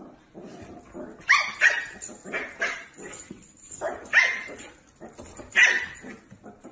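A dog barking in a series of short, sharp, high-pitched barks, the loudest pairs coming about a second in, at four seconds and just before six seconds.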